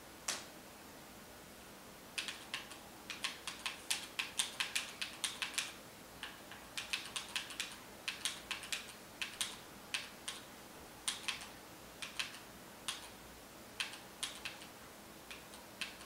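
Xbox controller buttons being pressed: a single click just after the start, then quick, irregular flurries of clicks with short pauses.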